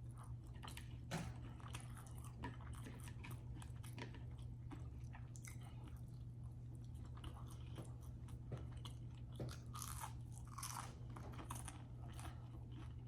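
Close-up chewing and crunching of crispy fried food, with many small, quick mouth clicks and crackles throughout, over a steady low hum.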